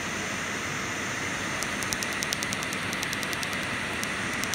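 Tattoo-removal laser firing pulses at the skin: a rapid run of sharp snapping clicks, several a second, starting about one and a half seconds in, over a steady hiss.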